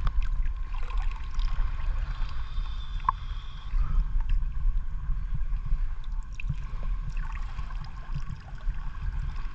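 Low, steady rumble of moving water, muffled as if heard through an underwater camera housing, with a few small clicks and taps.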